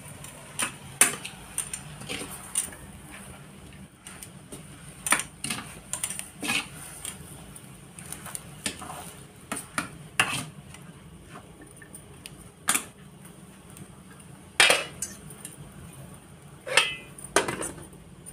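Metal spoon clanking and scraping against a metal pan as spinach is stirred, in irregular knocks. Near the end the metal lid is set down on the pan with louder clanks.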